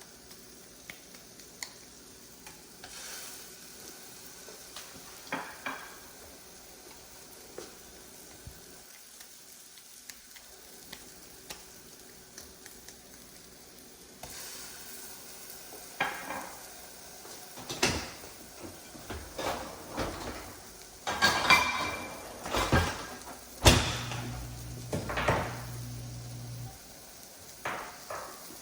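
Cooking at a stovetop: food sizzling in a pan, with clinks and clatter of utensils against pans that get busier and louder in the second half. A low hum joins for a few seconds near the end.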